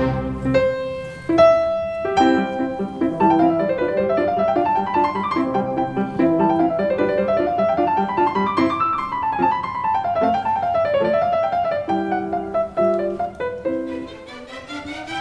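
Background piano music: a few held notes, then quick runs of notes rising and falling over repeated chords.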